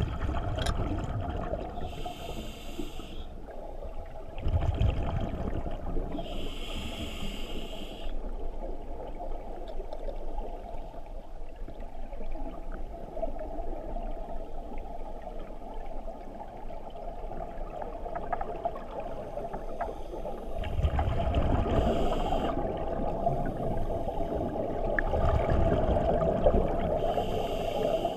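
Scuba regulator breathing underwater: hissing inhalations alternating with low bubbling surges of exhaled air, several breaths a few seconds apart, over a steady underwater hum.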